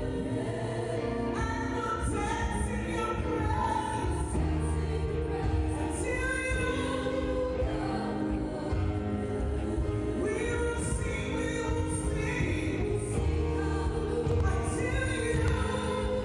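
Live praise band playing a worship song with sung vocals over a steady bass and keyboard-style chords.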